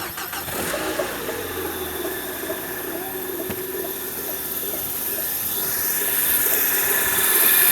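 Engine running with a steady squealing hiss ('chiado') from a worn clutch release (throw-out) bearing, the sign that the clutch is due for replacement. The sound grows gradually louder.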